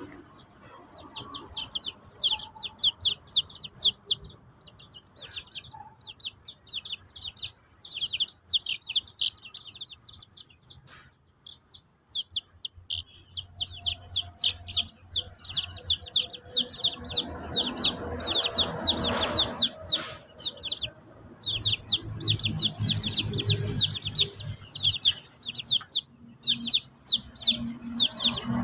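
Young chickens peeping: rapid runs of short, high, downward-sliding peeps, broken by a couple of brief pauses.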